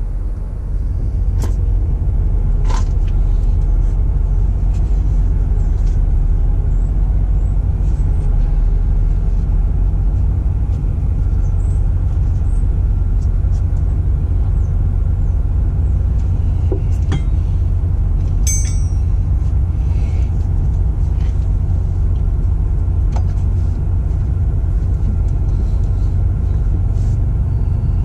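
Steady low rumble of a large diesel engine idling, with a few light clicks and a short metallic jingle about two-thirds through.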